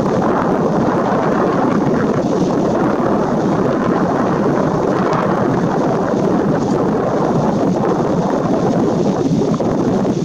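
Steady wind rushing over the microphone, loud and unbroken.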